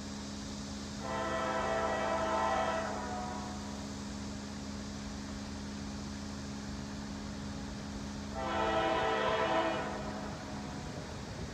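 CSX diesel freight locomotive's air horn sounding two blasts, a chord of several tones held steady: a blast of about two seconds about a second in, and a shorter one of about a second and a half near the end. The horn is the locomotive's warning for the grade crossing it is approaching.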